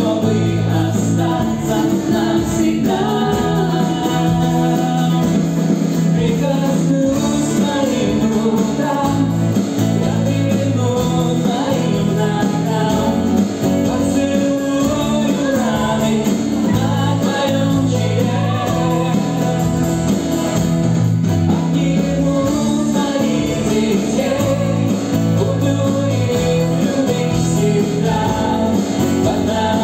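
Live worship band playing a song in Russian: male and female voices singing over strummed acoustic guitar, electric guitar and drums, with steady bass notes throughout.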